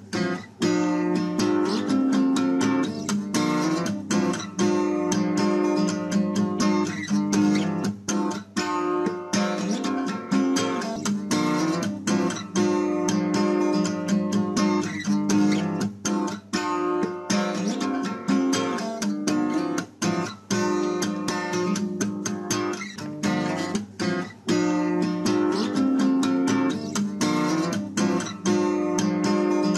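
Acoustic guitar music: strummed chords with a steady rhythm.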